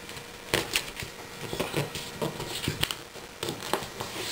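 A sheet of paper being folded and creased by hand on a table, with irregular crinkles and taps.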